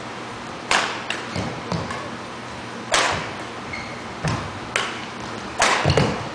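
Badminton rally: rackets striking the shuttlecock with sharp, echoing cracks, three loud hits a little over two seconds apart and lighter taps and footfalls on the court between them, in a large gym hall.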